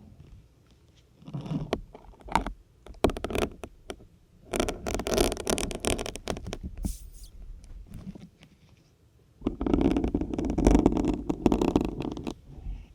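Syringes being pushed into a dense grey sponge, making rough squeaky scraping and crunching sounds with small clicks. A few short pushes come first, then two longer drawn-out ones, one in the middle and one near the end.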